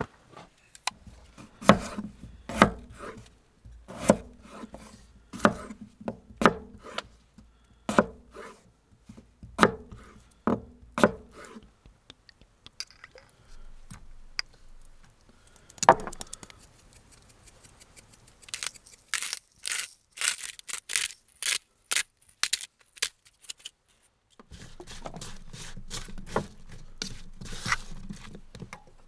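Firewood being split for a campfire: a string of sharp woody knocks about once a second, one more heavy knock, then a quick run of cracks, and a steady rustling scrape near the end.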